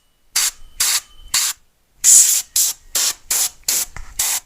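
Air duster blowing dust out of electronics in a string of short hissing blasts, about ten of them, one held longer about two seconds in.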